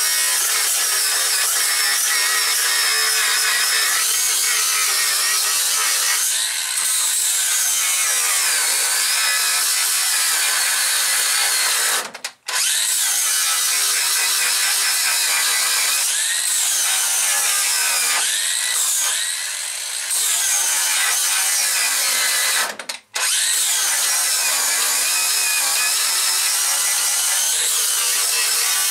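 Angle grinder with a flap disc grinding a steel car floor pan, its whine rising and falling as the load changes. It stops twice for a moment, a little before halfway and again about three-quarters through, then carries on.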